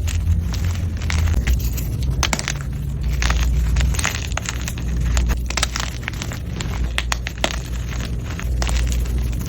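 Blocks of gym chalk being crushed, giving irregular crunching and crackling, with a constant low rumble underneath.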